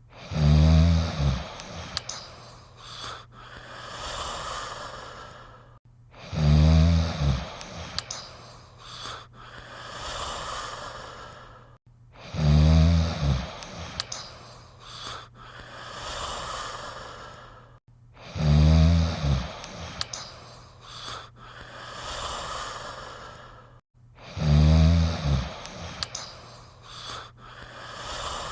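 Snoring repeating about every six seconds, five times: each time a loud low snore lasting about a second, then a softer breathy breath.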